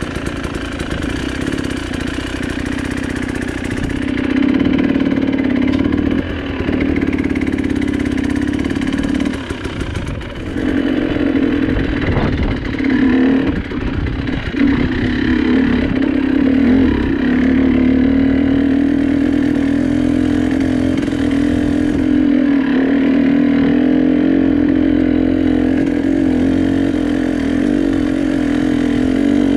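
Vehicle engine running under way, its pitch dipping and recovering several times around the middle as the throttle and gears change, then holding steady.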